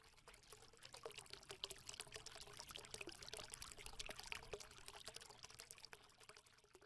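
Faint intro sound effect of many small crackling, trickling clicks. It swells about a second in and fades out near the end.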